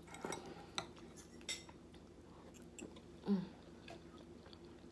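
Faint chewing and mouth sounds of someone eating biscuits and gravy, with a few soft clicks in the first second or so and a short sound from the throat about three seconds in.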